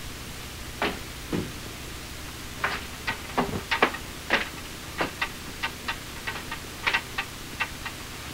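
A string of short, sharp clicks and light knocks, irregular at about two or three a second, over a low steady hum.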